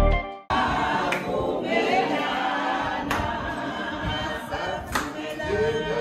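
Background music fades out, then a group of people sing together without any instruments.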